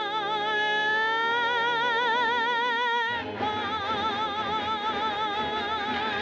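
Female singer's voice holding the song's long final notes with wide vibrato over a film-musical orchestra. The first note bends slightly upward. A second held note follows about three seconds in as the accompaniment swells.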